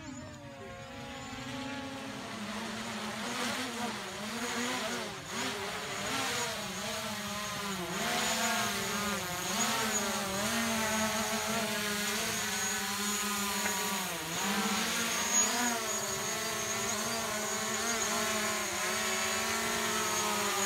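Quadcopter drone's propellers whining as it comes down from the sky and hovers close by. The pitch wavers up and down as the motors adjust, and the sound grows louder over the first several seconds as the drone nears.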